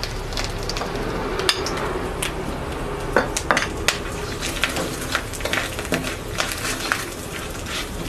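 Wooden spatula scraping and clacking against a metal kadai, stirring spice powders into hot oil that sizzles underneath. The sound is sharp, irregular clicks over a steady frying hiss.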